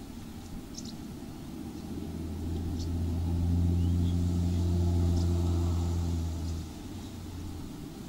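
A low engine hum with a steady pitch swells over a couple of seconds, holds, then drops away sharply near seven seconds in, leaving a faint tail. Above it, birds give a few short, faint chirps.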